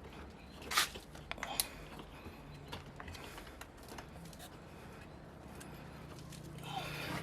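Hands wiggling and prying at the lower radiator hose: scattered clicks, creaks and scrapes of rubber, plastic and metal, with two sharp clicks about a second and a second and a half in, over a faint steady low hum.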